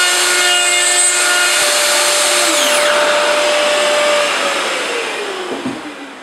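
Plunge router running at full speed, cutting a hinge recess through a template jig, then switched off about four seconds in and spinning down with a falling whine.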